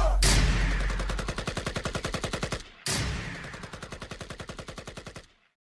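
Automatic gunfire sound effect: two rapid bursts of shots, the second starting just under three seconds in, each fading away.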